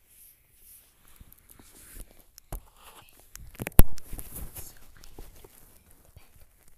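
Handling and rustling noise of a phone being moved about against bedding, with scattered light knocks and one sharp bump just under four seconds in.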